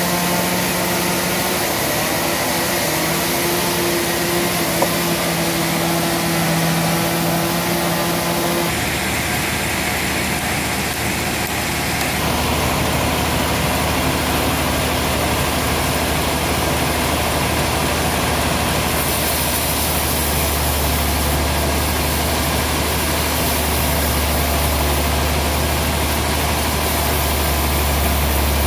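Large sawmill band saw machinery running with a steady low drone. The sound changes abruptly twice, about a third of the way in.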